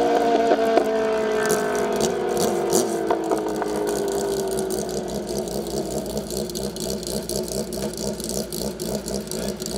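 Two drag-racing motorcycles at full throttle down the strip, their engine note sliding lower in pitch and fading as they pull away. About six seconds in, a nearby motorcycle engine takes over, idling with a steady pulse.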